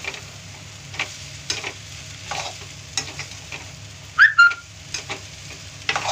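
A metal spatula stirring and scraping rice in a metal kadhai over a high gas flame, with irregular knocks against the pan and the rice sizzling. About four seconds in come two short, high squeaks, the first gliding upward.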